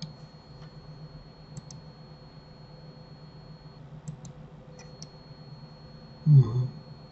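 Computer mouse clicking a few times, some as quick double clicks, over a steady low hum. Near the end comes a brief, much louder low sound.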